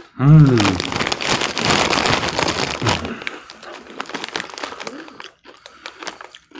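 A short hummed vocal sound, then the foil-lined Zapp's potato chip bag crinkling and rustling as it is handled. The crinkling thins out after about five seconds.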